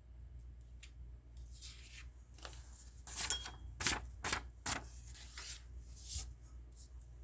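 A sheet of drawing paper handled and laid back down on a cardboard drawing board. There is a quick run of sharp rustles and taps about three to five seconds in, and one more about six seconds in.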